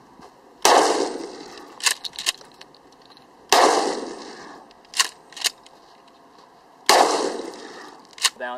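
Pump-action shotgun fired three times, about three seconds apart, each report ringing out and fading over a second or two. Each shot is followed by two short clacks of the slide being racked back and forward.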